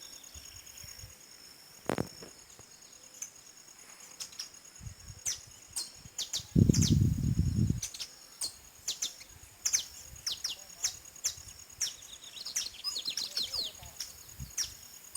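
Small birds chirping in many short, quick notes that sweep downward, growing busier in the second half, over a steady high insect buzz. A brief sharp click comes about two seconds in, and a loud low rumble lasting about a second comes near the middle.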